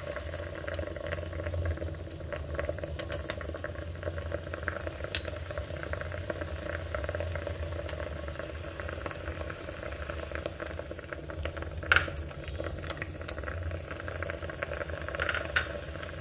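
Water boiling in a steamer pot: a steady low hum with dense fine bubbling and crackle. A single sharp clink of the metal ladle against a china bowl about twelve seconds in.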